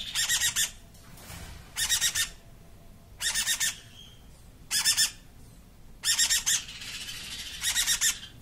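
Two-week-old Meyer's parrot chick screaming: six short, harsh, raspy calls, about one every second and a half.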